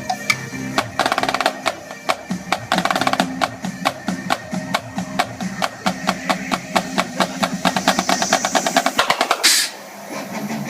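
Live drum percussion played over a backing music track: a run of fast drum hits that speeds up into a roll and ends in a crash about nine and a half seconds in.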